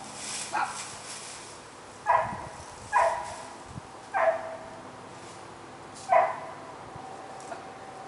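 A dog barking: five short barks at uneven intervals, the first one weaker, with a longer pause before the last.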